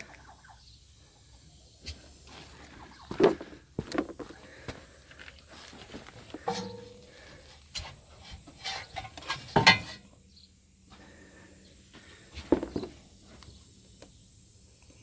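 Scattered knocks and clanks of tools and suspension parts being handled, with a short squeak about six and a half seconds in.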